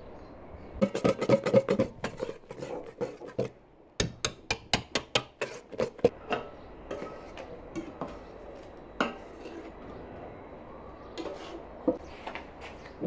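Wire whisk clinking against a stainless steel mixing bowl while sponge batter is mixed. Two quick runs of clinks, about four a second, come in the first half, followed by scattered lighter taps.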